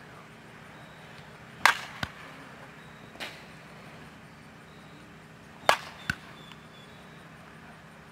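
Softball bat striking the ball twice, about four seconds apart, each a sharp crack followed under half a second later by a smaller knock. A fainter knock comes between the two hits.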